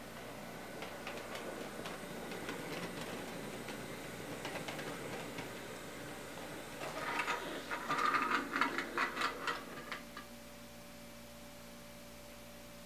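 HO-scale model train running on the layout's track: a fast run of small mechanical ticks and clicks, louder and denser about seven to ten seconds in, then only a steady faint hum.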